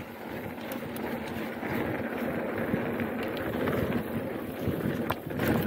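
Mountain bike rolling along a trail: wind buffeting the microphone and tyre noise, building over the first couple of seconds, with a few sharp clicks and rattles.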